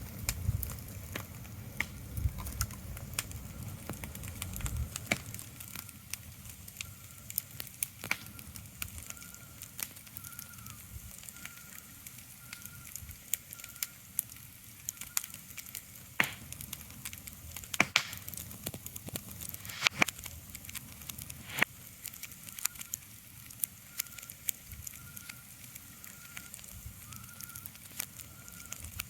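Ambient sleep soundscape: a steady soft hiss with scattered sharp crackles and pops, and a low rumble for the first few seconds. From about nine seconds in, a faint high chirp repeats at an even pace.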